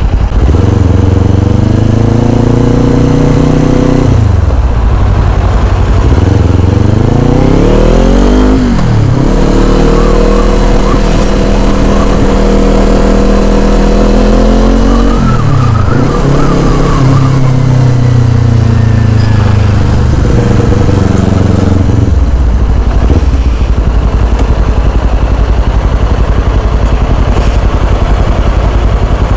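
Kawasaki Z400's four-stroke parallel-twin engine under way, its pitch climbing as it accelerates and then dropping at each upshift, about three times, with spells of steady cruising between. In the last stretch a steady wind rush over the microphone covers most of the engine note.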